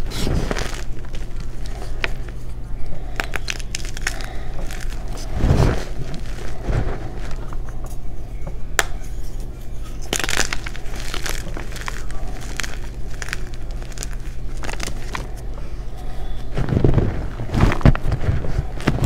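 Bare hands squeezing and crushing gym chalk chunks and powder: a continuous run of dry, crunchy crackles and crumbling. Louder squeezes come about five seconds in, about ten seconds in, and near the end.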